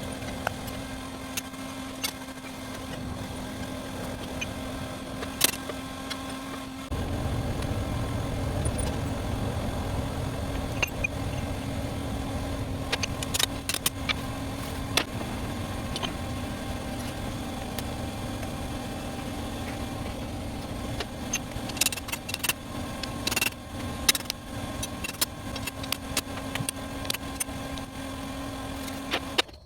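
A steady machine hum with many scattered clicks and knocks; a deeper rumble joins about seven seconds in.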